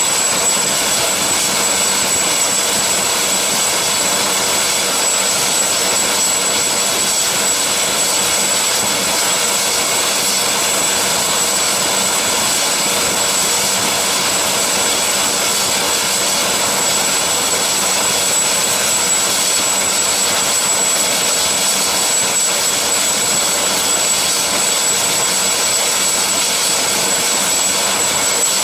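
AgustaWestland AW139 helicopter running on the helideck with rotors turning: a steady turbine whine with a high, constant tone over a hiss, unchanging throughout.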